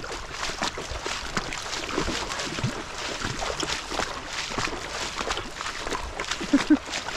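Feet wading through ankle-deep water on a reef flat: irregular sloshing and splashing steps, with two brief louder sounds near the end.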